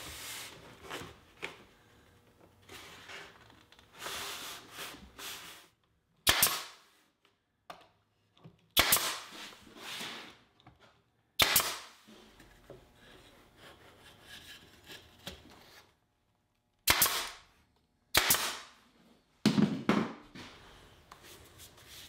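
Pneumatic nail gun firing several sharp shots, a second or more apart, driving nails through bead molding into a wooden planter. Before them there is some softer rubbing as the wood strip is pressed into place.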